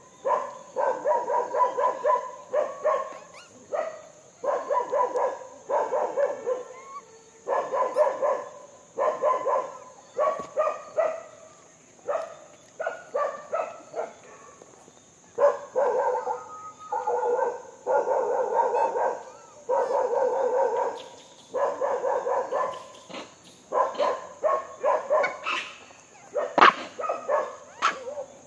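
Macaques calling: bursts of rapid, pulsed calls about a second long, repeating every second or two, over a steady high-pitched whine.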